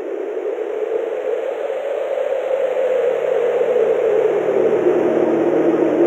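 Strong snowstorm wind blowing through a forest: a steady rushing noise that grows gradually louder.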